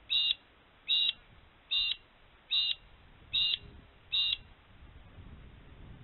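Magpie-lark calling six times in a steady series, one short clear call about every 0.8 seconds.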